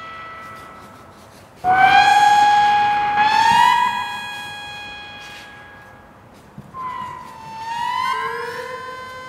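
Electronic synthesizer tones played through speakers: long, bright notes rich in overtones, each sliding a little in pitch as it comes in and then slowly fading. Two loud notes enter about a second and a half in and again about three seconds in, and two softer ones follow near the end.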